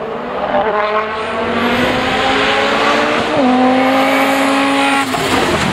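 Audi S2 quattro hillclimb car's inline-five engine at full throttle, rising in pitch through a gear, shifting up about three seconds in, then pulling again before lifting off near the end.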